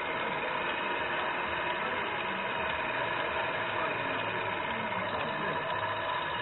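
Steady mechanical whirring with a hiss from a radio-controlled model truck's drivetrain running close to the microphone.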